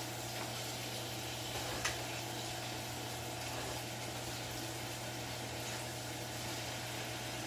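Food frying in a wok on a portable gas stove: a steady sizzle, with a few faint scrapes and knocks of a wooden spatula as it is stirred, over a steady low hum.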